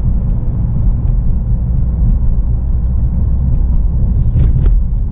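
Road and engine noise inside a moving car's cabin: a steady low rumble, with a brief rustle about four seconds in.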